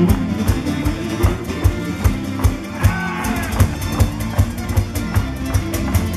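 Live folk band playing an instrumental passage: fiddle and guitar over a steady drum beat of about two strokes a second.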